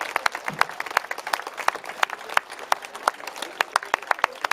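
Audience applauding at the end of a brass band performance, with single sharp claps standing out from the crowd's clapping.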